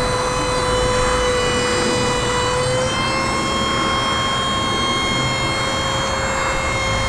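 A steady high whine over a rushing hiss, like a jet engine running, with its pitch stepping up slightly about three seconds in.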